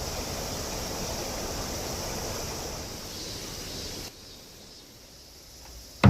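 Steady rushing of a mountain stream, which drops abruptly to a much quieter level about four seconds in.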